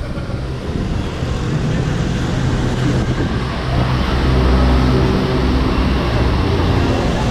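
Road traffic: the steady engine drone of passing motor vehicles, swelling louder about halfway through.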